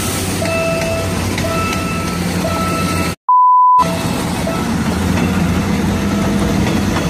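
A level-crossing warning alarm beeps in two alternating tones, about one pair a second, over the steady rumble of a passenger train passing on the PNR line. About three seconds in, the sound cuts out for a moment and a loud single pure beep sounds for about half a second.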